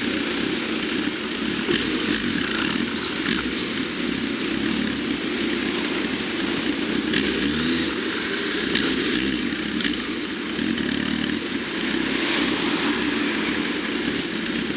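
Road traffic with a motorcycle engine running, its pitch shifting now and then over a steady noise of passing vehicles.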